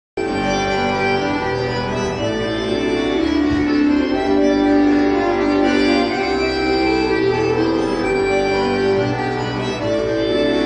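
Music for a Don Cossack folk dance, starting abruptly: sustained reedy chords with a bass line that moves every second or two.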